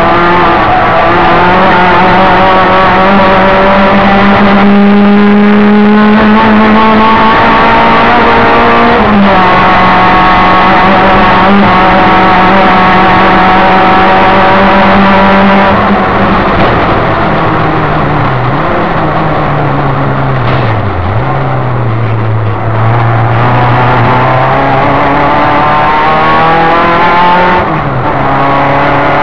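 Opel Ascona race car engine at full throttle, heard from inside the cabin. Revs climb for the first third, drop at a gear change, hold steady, then fall away with two sharp dips as the driver lifts and changes gear, before it pulls again and shifts once more near the end.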